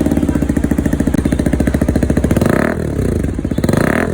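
Motorcycle engine running through an aftermarket exhaust with its silencer insert fitted, idling steadily and then revved in two short throttle blips in the second half.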